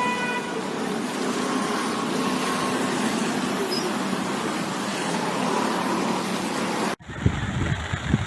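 Steady road traffic noise, with a short horn toot at the start. About seven seconds in it cuts abruptly to wind buffeting the microphone.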